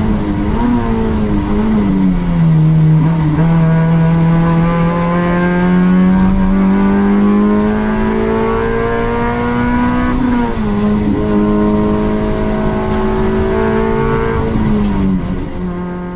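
Eco-class race car engine pulling hard under acceleration. Its note climbs slowly through each gear and drops sharply at upshifts about two seconds in, about ten seconds in and near the end.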